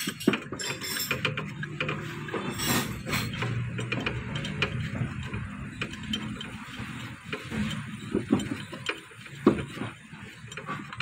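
Hand tools clicking and clinking against metal at an irregular pace while a car air-conditioning compressor's mounting bracket is unbolted.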